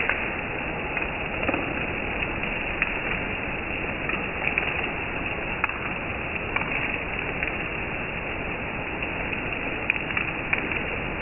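Heavy rain falling steadily on leaves and grass: a dense, even hiss with scattered sharper taps of individual drops.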